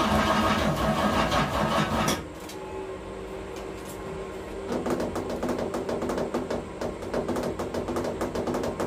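1976 Chevrolet Camaro's engine running just after starting, then stopping suddenly about two seconds in. After a quieter stretch, background music with a clicking percussive beat comes in about halfway through.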